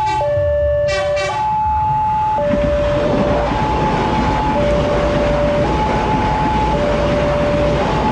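Level crossing warning alarm alternating between a low and a high tone about once a second. A horn sounds twice at the start, then a train passes with a loud, steady rumble of wheels on rail from about two and a half seconds in.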